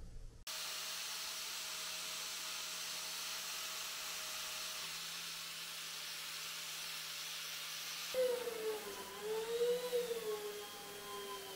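Electric power tool running with a steady hum. About eight seconds in the sound changes: louder and uneven, its pitch wavering up and down as the tool is worked against the rusty hammer head.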